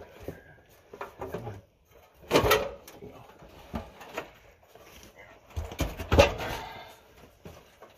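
Suburban RV water heater scraping and knocking against its compartment as it is pulled out, with two louder clunks, about two and a half and six seconds in.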